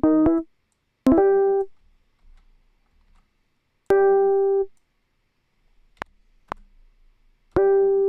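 Software piano in Logic Pro playing short block chords, a C major and a C minor, four times, each about half a second long. Two faint clicks fall in the gap between the third and fourth chords.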